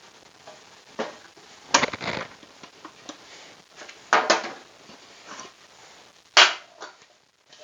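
Wooden pieces and tools being handled during assembly: several sharp knocks and clatters, the loudest about six seconds in.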